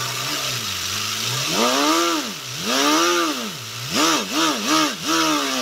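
3D-printed inline-four compressed-air engine running on shop air, with a steady hiss of escaping air; its pitch holds low at first, then repeatedly revs up and falls back, two slow swells followed by several quicker ones. It is an engine its builder says ran very poorly from lack of build quality.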